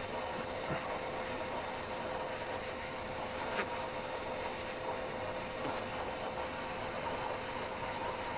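Vacuum cleaner running steadily with a constant whine, with a couple of faint taps.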